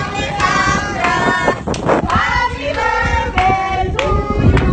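A group of people singing together loudly for a birthday, with a few hand claps among the voices.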